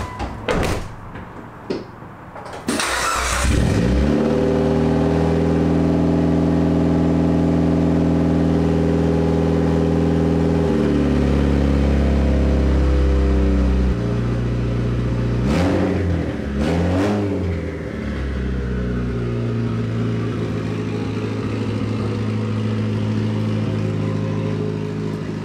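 Mitsubishi Lancer Evolution IX's turbocharged 4G63 inline-four: a car door shuts, then about three seconds in the engine cranks, starts and idles steadily. Around the middle its note shifts twice and it gives two short revs, then it settles into steady low running.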